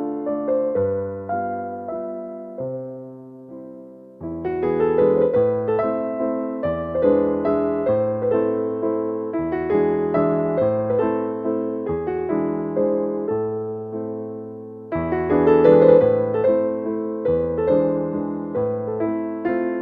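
Slow, gentle piano music: single notes and chords ringing out and fading. One phrase dies away about four seconds in before the playing picks up again.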